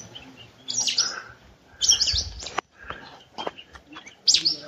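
Birds chirping: short, bright calls in three bursts, about a second in, around two seconds in, and near the end, with a brief low rumble around the middle.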